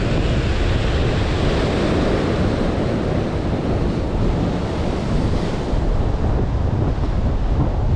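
Ocean surf breaking and washing over rocks in a steady rush, with wind buffeting the microphone.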